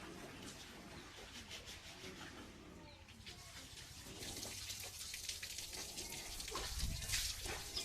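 Water running and splashing, as at a sink during rinsing; the flow starts about halfway and grows louder, with soft thumps near the end.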